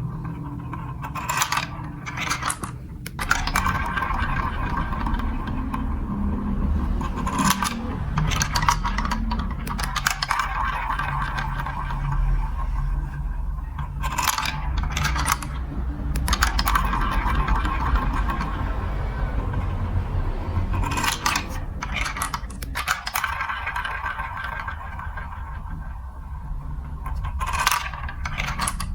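Marbles rolling down a plastic building-block marble run: a steady rolling rumble with repeated clicks and clatters as they drop onto and knock against the track pieces.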